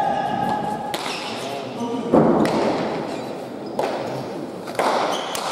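Pelota rally: the ball cracks off wooden paletas and slams against the court walls, about four sharp impacts a second or more apart, each ringing in the hall. Voices are heard over it, with one held call near the start.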